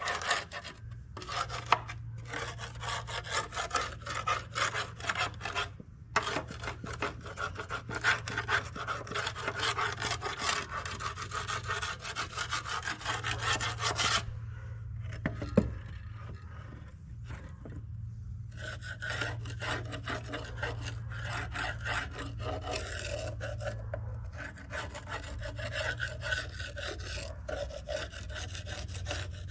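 Rapid, irregular scrubbing and scraping strokes on the metal air filter housing of a Ford 545A backhoe as the caked-on dirt is worked off, with a short pause and a single sharp knock about halfway through.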